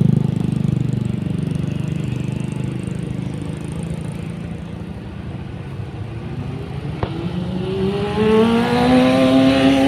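Bus diesel engine running with a low pulsing drone that eases off for several seconds, then climbs steadily in pitch over the last three seconds as it accelerates.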